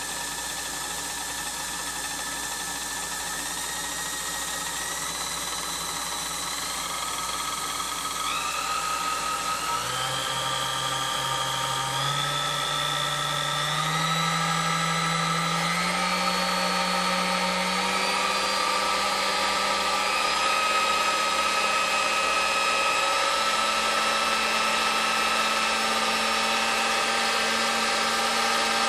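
Restored 1934 Sunbeam Mixmaster Model 1 stand mixer's brushed motor running, its hum stepping up in pitch several times as the speed control is turned up through its speeds. It runs quietly, even on low.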